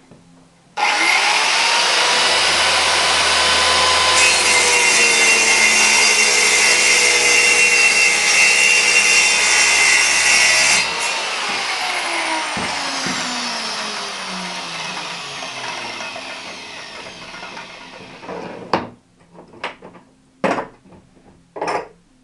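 Handheld electric circular saw starts up and cuts through a laminated chipboard panel along a clamped guide rail, loudest while the blade is in the board. The motor is then switched off and winds down with a falling whine, followed by a few short knocks of clamps and the rail being handled.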